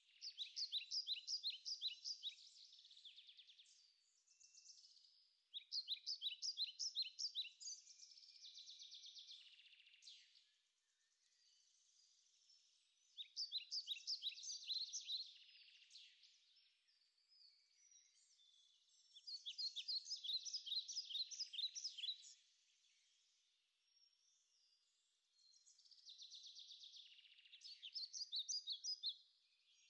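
A songbird singing the same phrase over and over, about every six seconds. Each phrase opens with a fast run of repeated high notes and trails off into a buzzier ending.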